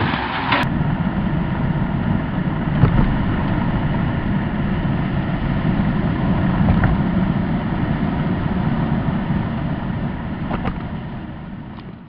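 Steady tyre and engine noise of a car driving across a bridge, heard from inside the cabin, fading out near the end.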